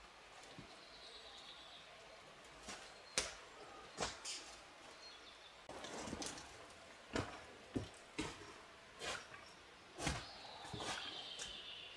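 Footsteps of a hiker in boots crossing rocks, loose stones and patches of snow: irregular crunches and knocks, spaced unevenly as he picks his way over boulders, with the loudest step about three seconds in.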